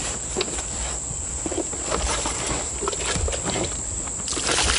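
Small knocks and rustles as a white plastic water jug is handled, then about four seconds in a loud hiss as water is poured onto a campfire. A steady high insect drone runs underneath.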